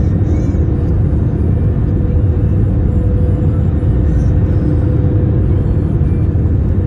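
Steady low rumble inside the cabin of an Airbus A321-231 on its descent to land: its IAE V2500 turbofan engines and the airflow over the fuselage, with a constant mid-pitched hum running through it.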